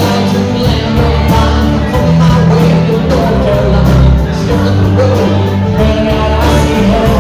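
Live rock band playing a song: strummed acoustic guitars, mandolin and electric guitar over bass and drums on a steady beat, with a man singing lead.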